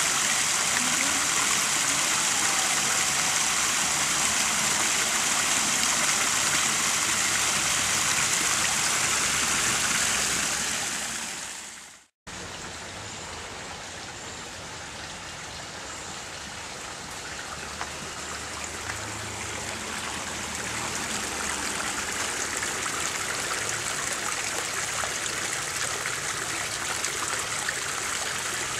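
Water of a small creek rushing and splashing over rocks, loud and close. It fades out about twelve seconds in, then a fainter stream sound comes back and grows louder toward the end.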